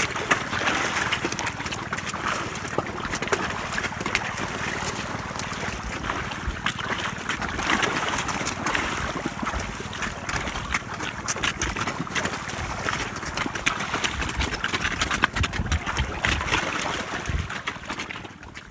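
Continuous splashing and churning water, thick with small slaps and clicks, as giant snakeheads feed at the surface on small fish.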